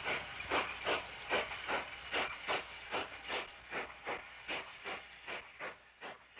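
Narrow gauge steam locomotive exhaust chuffing in a steady beat, about two and a half chuffs a second, gradually fading.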